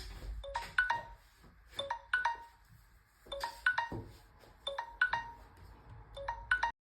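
Smartphone ringtone or alarm tone: a short, bright, plinking phrase of a few quick notes, repeating about every second and a half, that cuts off suddenly near the end.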